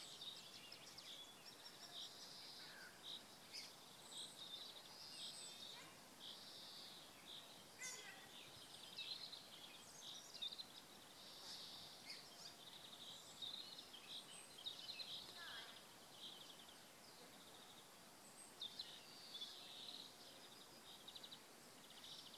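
Faint songbirds chirping and trilling over a steady background hiss.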